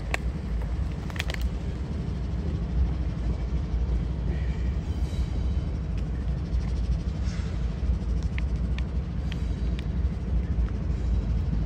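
Group of diesel locomotives moving through a rail yard, a steady low rumble, with a few short faint high squeaks about eight to ten seconds in.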